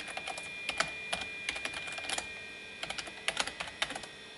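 Computer keyboard keys clicking in quick runs of typing, with a short pause a little over two seconds in.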